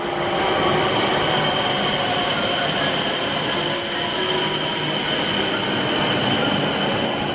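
Train sound with a steady high-pitched squeal over a loud rushing rumble, fading in at the start and fading out near the end.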